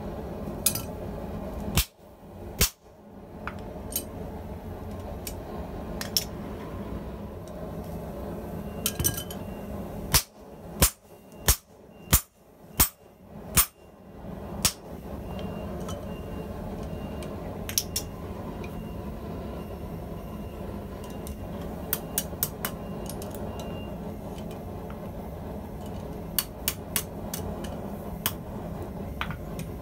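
Hammer blows on a serrated rack piece laid over a hot steel pipe, pressing a zigzag pattern into it. There are two blows about two seconds in, then a run of about seven blows at roughly two a second between about ten and fifteen seconds in. Lighter metal clinks come later, over a steady background hum.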